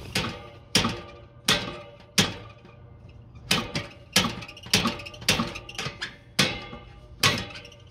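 SUPCO Bearing Buster, a slide-hammer bearing removal tool, clanking again and again as it is yanked to hammer a rust-seized bearing off a blower shaft. There are about a dozen sharp metallic strikes, roughly one every two-thirds of a second with a short pause near the middle, and each rings briefly.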